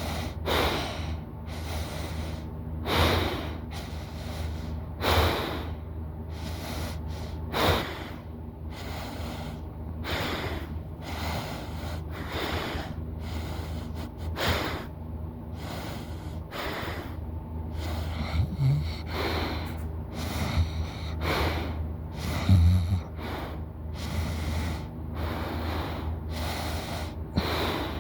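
A person snoring in sleep: rasping breaths repeating about every two to two and a half seconds, with a few short snorts, over a steady low hum.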